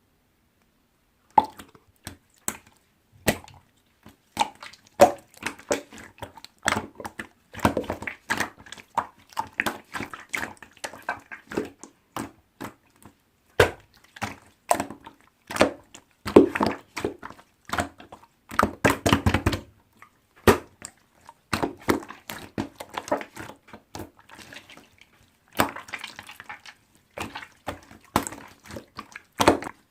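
Slime being squished and poked by hand, making irregular wet clicks and pops with denser runs of crackling, starting about a second and a half in.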